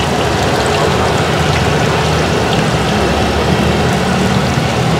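Tahu aci, tofu coated in tapioca batter, deep-frying in hot oil: a steady crackling sizzle, with a low steady hum underneath.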